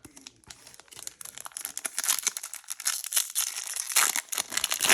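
Foil wrapper of a Pokémon card booster pack being torn open and crinkled, a dense crackly rustle that builds from about a second and a half in.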